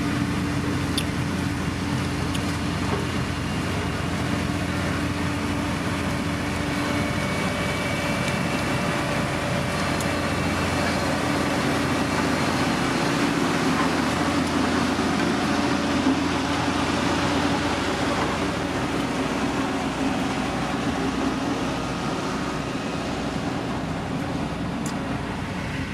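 Heavy road-construction machine's diesel engine running steadily under work, with a constant low hum that swells a little in the middle and eases slightly near the end.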